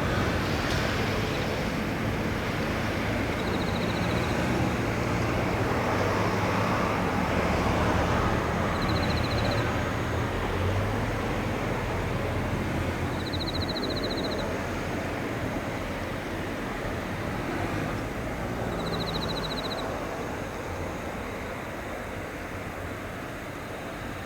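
Steady rushing background noise with a low hum, fading slowly toward the end, broken by four short, high, fast-pulsed trills about five seconds apart.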